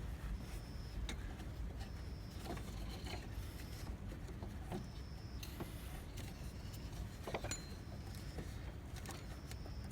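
Scattered light clicks and knocks of hand work in a car's engine bay while fitting a ribbed accessory drive belt, over a steady low background hum.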